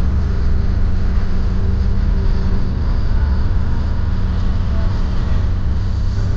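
Steady low road and engine rumble of a car driving at speed on a motorway.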